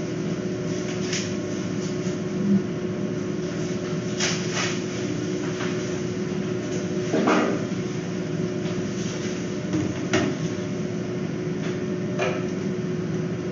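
Steady low hum in a hard-surfaced exam room, with about five sharp knocks and clatters a few seconds apart, as equipment is handled at the steel tables.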